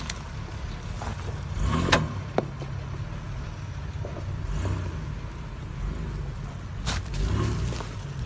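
Engine of a 3.5-litre V6 Mitsubishi Pajero running at low revs as the SUV crawls over a rocky dirt slope, with a few sharp knocks from the tyres and underbody on stones, about two seconds in and again near the end.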